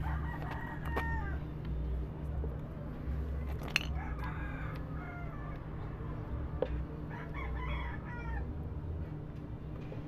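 A rooster crowing three times, each crow drawn out and falling off at the end. A few sharp clicks sound in between over a steady low hum.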